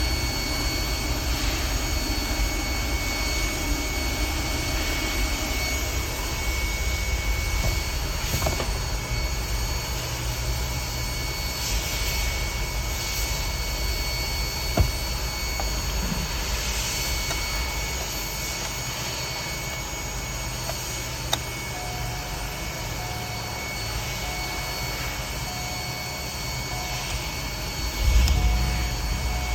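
2010 GMC engine running steadily with a high, constant whine over it. Two sharp clicks sound in the middle, and a series of short beeping tones comes in during the last third.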